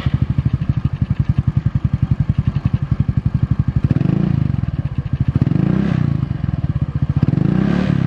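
Yamaha X-Ride scooter's single-cylinder four-stroke engine idling through a Proliner racing exhaust, a fast, even thudding with a mellow note. It is blipped lightly three times in the second half, the pitch rising briefly each time.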